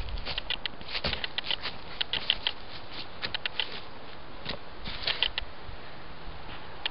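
Feet stepping and pivoting quickly on dry fallen leaves over grass: several quick runs of crisp crunching and rustling, with gaps between them.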